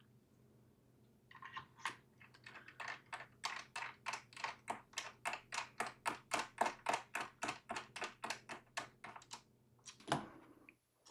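Rapid, even clicking, about four clicks a second, from a screwdriver turning a screw into the bottom plate of a mini PC, then a couple of sharper clicks near the end.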